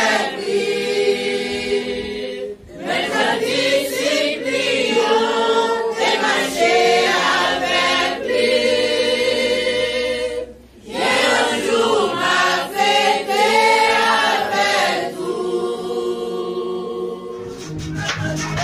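Congregation singing a hymn together in Haitian Creole worship, unaccompanied, in long phrases with short pauses for breath about 2.5 and 10.5 seconds in. Near the end the singing gives way to band music led by an electronic keyboard.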